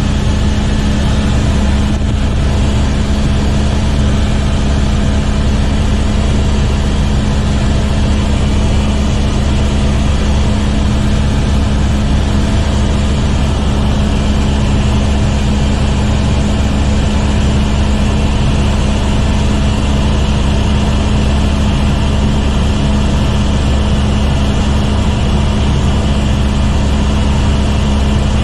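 Cabin sound of an Airbus AS350 helicopter in steady cruise flight: a loud, unchanging deep drone from the rotor and engine, with a steady hum above it.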